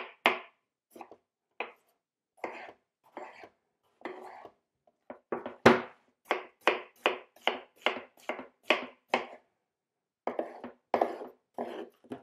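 Kitchen knife chopping peeled watermelon on a wooden cutting board: a string of sharp knocks of the blade on the board, in quick runs of about two or three a second with short pauses between. The loudest strike comes about six seconds in.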